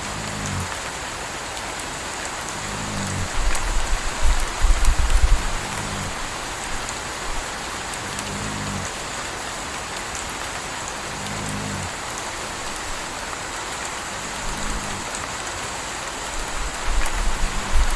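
Steady rain falling, with a puppy's soft snores recurring about every three seconds. A low rumble swells twice, around four to five seconds in and again near the end.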